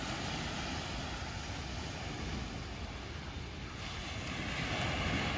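Wind buffeting the microphone over small waves washing onto a sandy beach, the surf growing louder about four seconds in.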